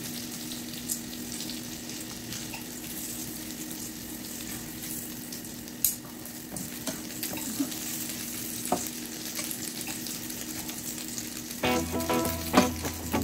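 Oil sizzling steadily around egg-battered slices of canned meat loaf frying in a pan, with a few sharp clicks of metal tongs against the pan. Music comes in near the end.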